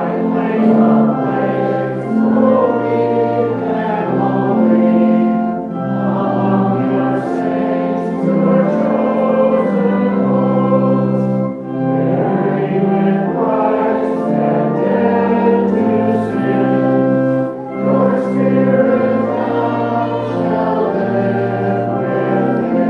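Opening hymn sung by many voices in held chords, with brief breaks between lines.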